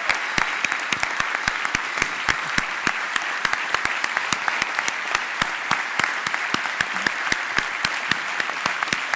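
Large audience applauding steadily: many hands clapping at once, with sharp individual claps standing out.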